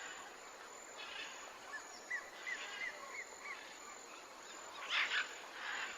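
Rainforest ambience: a bird gives a run of about five short, quick chirps, then a louder, harsher double call about five seconds in, over a soft steady background hiss.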